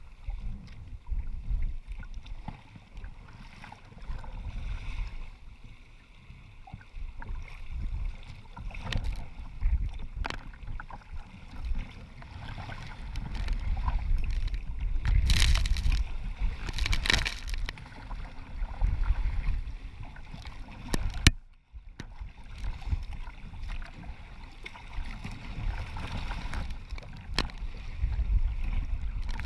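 Sea kayak surfing downwind through choppy waves: water rushing and splashing against the hull, with wind buffeting the deck-mounted camera's microphone as a low rumble. Two louder splashes of spray break over the bow about halfway through.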